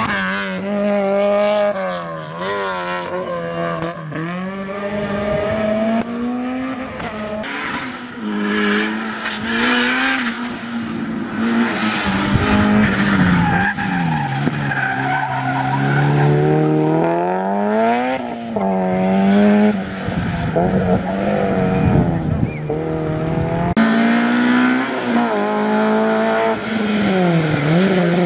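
Hillclimb racing cars, among them a Peugeot 106 and a Honda Civic, driven hard through hairpins one after another. Each engine revs up and drops back repeatedly with gear changes and lifts, with some tyre squeal.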